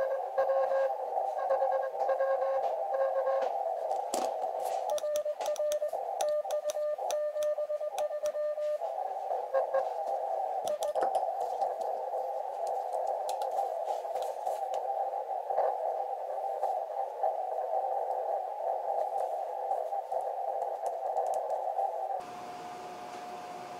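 Elecraft KX2 receiver audio in CW mode: band noise squeezed through a narrow filter into a hiss, with Morse code tones keyed on and off for the first few seconds and again for a few seconds in the middle, amid scattered clicks. Near the end the hiss drops away, leaving one steady tone.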